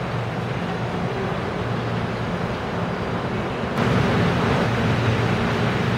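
Korail 1000-series electric commuter train approaching on a curve: a steady rumble with a low hum. About four seconds in, the sound jumps abruptly louder into fuller, nearer train noise.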